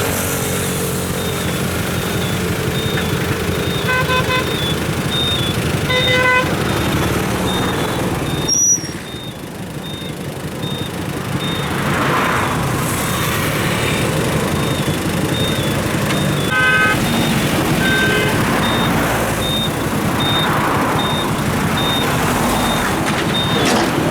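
Dump truck's engine running with its reversing alarm beeping at an even pace, a little more than one beep a second, and short horn toots a few times.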